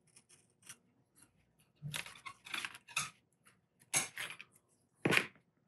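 Hands working thin wire at a workbench: a scatter of small metallic clicks and rustles, with the sharpest click near the end.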